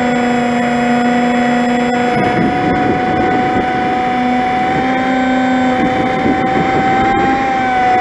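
Electric motor and propeller of an FPV flying wing in flight, a steady high whine held at one pitch, heard from a camera mounted on the plane. Wind rush over the microphone mixes in through the middle.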